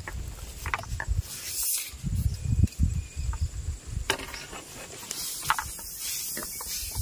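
Bamboo poles and frame of an anco lift net creaking and clicking in short irregular strokes as the net is worked, over a low rumble.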